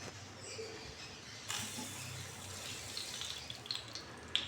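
Coconut oil hitting a hot pan and starting to sizzle: a hiss starts abruptly about a second and a half in, with a few pops and crackles toward the end, spitting from a trace of water left in the pan.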